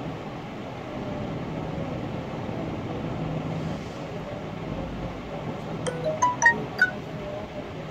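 Ceiling fans running with a steady whir and low hum. About six seconds in comes a quick series of four or five short, high clinking notes.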